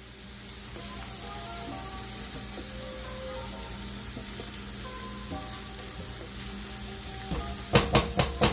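Diced onion and green bell pepper sizzling in olive oil and butter in a cast-iron skillet, stirred with a spatula. A quick run of about four sharp knocks near the end.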